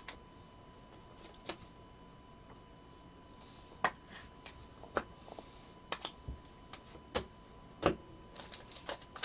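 Trading cards being handled and sorted on a table: a dozen or so light, sharp clicks and taps at irregular intervals.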